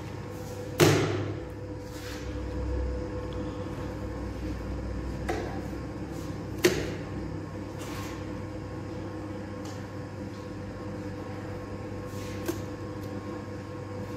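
Steady hum of an electric bowl dough mixer running, broken by a few sharp knocks as dough is handled at the mixer, the loudest about a second in and another near seven seconds.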